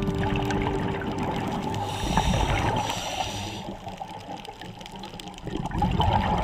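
Scuba divers' exhaled bubbles heard underwater, a noisy bubbling that is louder for a stretch about two seconds in and again near the end.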